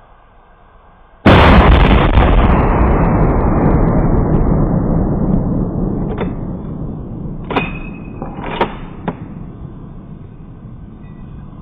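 Tannerite exploding after a rifle shot: a sudden, very loud boom about a second in that dies away slowly over several seconds, with a few sharp cracks near the middle.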